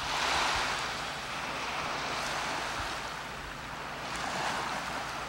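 Small sea waves washing onto the shore: an even hiss of water that swells shortly after the start and again near the end.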